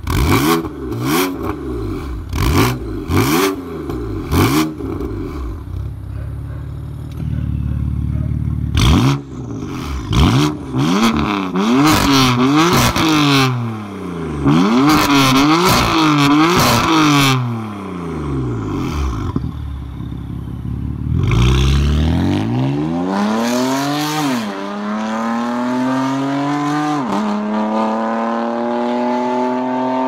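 BMW M4's twin-turbo inline-six through a Fi valved catback and catless downpipe, revved hard in short blips about once a second with loud cracks and pops as the throttle snaps shut. It then holds a rev before a run of higher revs rising and falling. In the last third the car pulls away under full acceleration, the engine pitch climbing with two quick upshifts.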